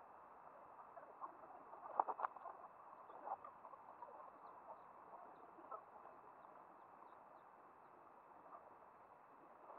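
Near silence: a faint steady hiss with a few soft clicks, the clearest pair about two seconds in.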